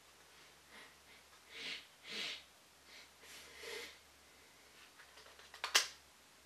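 About five soft breaths through the nose in the first four seconds, then a quick run of small clicks with one sharp click, the loudest sound, near the end.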